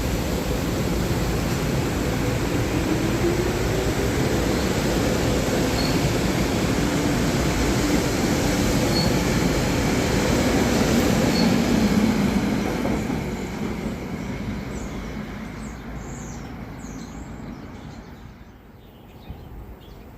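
SEPTA Regional Rail electric train going by on the tracks: a rumble of wheels on rail that builds to a peak a little past halfway, then fades away.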